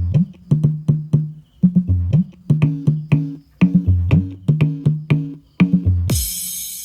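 Low-frequency test music played through passive JBL 5-inch speakers: a repeating bass line of short plucked notes, two to three a second, with sharp percussive attacks. About six seconds in it stops on a cymbal crash that fades away.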